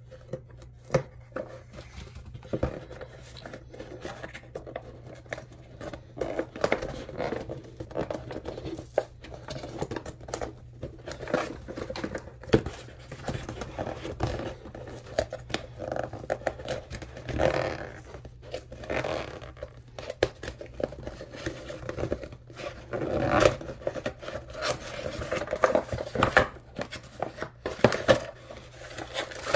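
A cardboard mailing box being handled and opened by hand on a desk: irregular scraping, tearing and rustling of cardboard and paper, with sharp knocks as the box is set down and moved.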